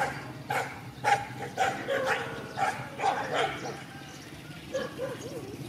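Dogs barking at each other in a rapid run of sharp barks, about two a second, then a few short yelps near the end.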